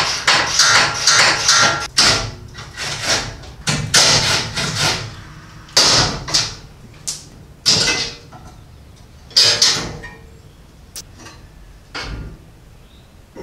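Hand tools on the skid-plate bolts under a lifted Honda Civic: a fast run of metallic clicks over the first couple of seconds, then separate sharp metal strokes about a second apart that thin out and get quieter towards the end.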